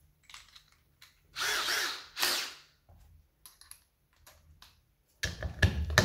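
Cordless drill with a socket bit driving a nut set in a wooden block, starting about five seconds in with a few sharp clicks. Two short bursts of sound come earlier, around one and a half and two seconds in.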